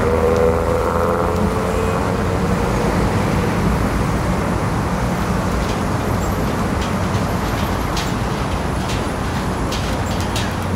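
Steady low rumble of city road traffic, with a pitched engine-like tone gliding slightly down over the first few seconds and a few faint sharp clicks in the second half.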